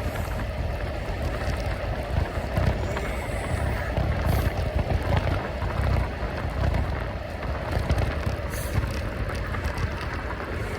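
Wind buffeting the microphone of a bike-mounted camera on a moving bicycle: a steady rushing rumble with a continuous hum underneath.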